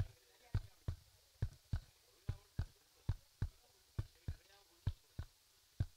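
Short dull thumps in a steady rhythm, paired like a heartbeat: two knocks about a third of a second apart, about one pair a second, with faint voices between.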